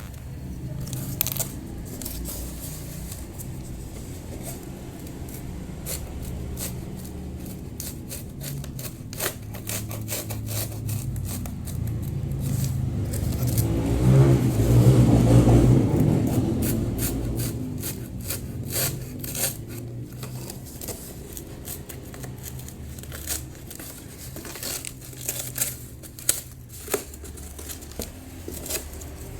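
Cardboard being cut, torn and handled, with many sharp clicks and scrapes, and a louder stretch of handling about halfway through.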